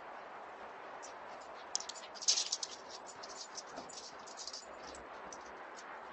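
A cockapoo's and a vizsla's claws clicking and scrabbling on stone patio paving as the dogs run. The clicks are quick and scattered and come in a dense, loud cluster about two seconds in, over the steady hiss of a security camera's microphone.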